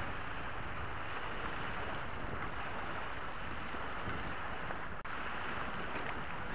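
Steady rush of choppy river waves washing over a rocky shoreline, with wind on the microphone. A very brief dropout about five seconds in.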